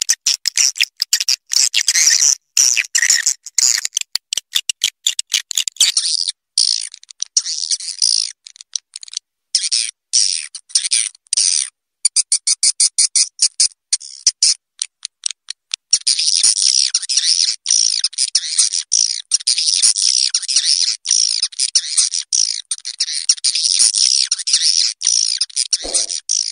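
Swiftlet call lure recording: swiftlets' high, rapid chattering chirps come in broken bursts, then a run of quick, evenly spaced clicks about halfway through. Just past the middle it becomes a dense, unbroken twitter.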